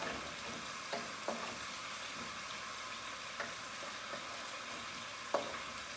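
Cauliflower rice with onion, celery and pesto sizzling in a frying pan as it is stir-fried, with a few light knocks of the spatula against the pan, the last one, about five seconds in, the loudest.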